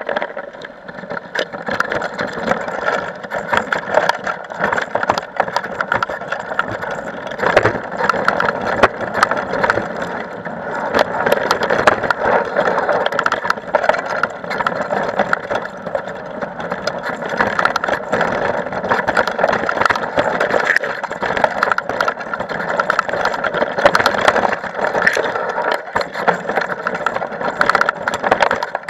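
Mountain bike riding over a rough dirt-and-gravel trail: tyres on loose stones and the bike rattling, a continuous noisy rush full of small knocks.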